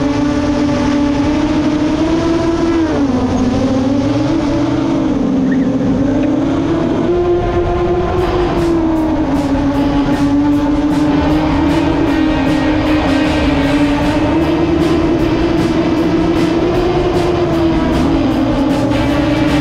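FPV racing drone's motors and propellers whining, a steady hum whose pitch rises and falls gently as the throttle changes.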